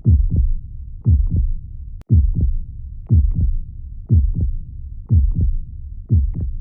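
Heartbeat, a steady lub-dub double thump about once a second over a low steady rumble. A brief click and dropout about two seconds in.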